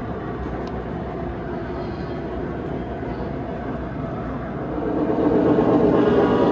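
Three-rail O gauge model trains running on a layout: a steady rumble of wheels and motors on the track, growing louder about five seconds in.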